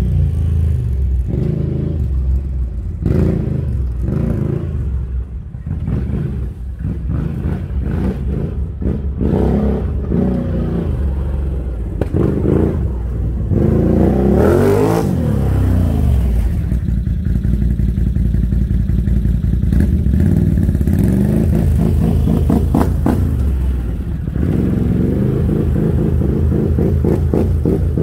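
Can-Am Outlander ATV engine heard through its customised muffler with a silencer insert fitted inside, revved in short irregular blips, then rising and falling in pitch as it drives across the lot and settling into steady running.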